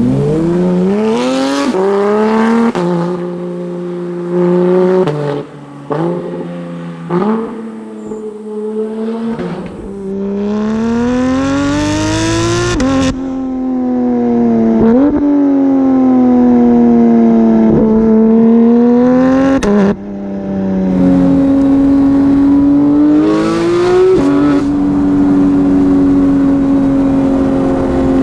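Porsche 991.2 GT3's naturally aspirated flat-six engine through a full Fi exhaust, revving up hard through several gears, its pitch climbing and then dropping suddenly at each shift. Further on come a few quick sharp blips and slower rises and falls in pitch, settling to a steadier drone near the end.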